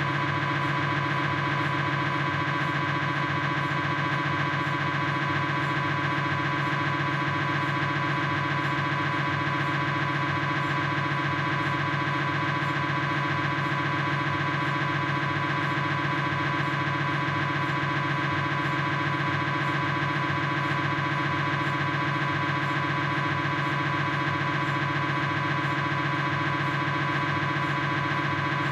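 Philips 1.5 T MRI scanner's gradient coils running a proton-density fat-saturated sagittal (SPIR) knee sequence: a loud, steady, rapidly repeating buzz made of several fixed tones, unchanging throughout.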